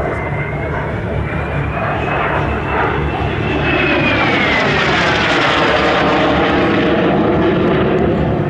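Fouga Magister jet trainer's twin Turbomeca Marboré turbojets running at display power as the jet flies past, a loud rushing roar with a high whine. The whine rises a little, then falls steeply about four to six seconds in as the aircraft passes, and the sound grows louder.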